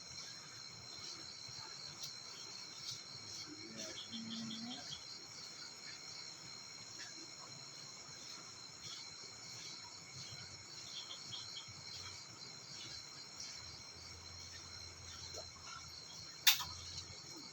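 Steady chorus of insects, several high shrill pitches held throughout, with one sharp click about a second before the end.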